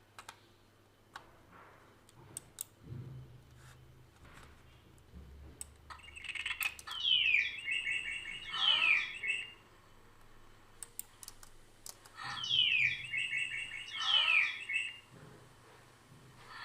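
A recorded bird-chirp sound effect played back twice, each time a few seconds of quick falling chirps. Computer mouse clicks sound in between.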